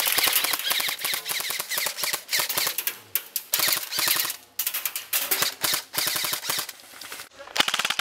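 Airsoft electric guns firing full-auto in long strings of rapid clicks, with short breaks about three, four and a half and seven seconds in.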